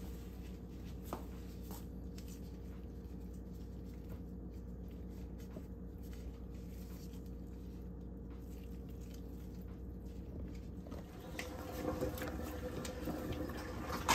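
Faint wet squishing and patter of hands working raw pork chitterlings (pig intestines) at a kitchen sink, over a steady low hum. The handling gets busier and a little louder in the last few seconds.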